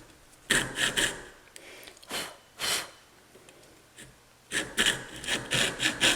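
A hand tool scraping back and forth on wood in short strokes: a few at first, then a steady run of about four strokes a second near the end.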